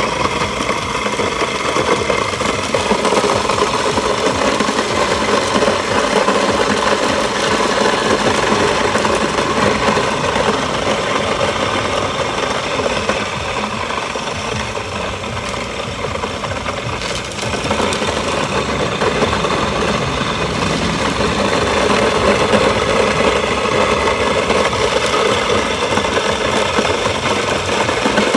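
Small belt-driven electric grain mill running under load, grinding dried corn kernels into meal, with a steady grinding rattle. The sound eases for a few seconds past the middle, then picks back up.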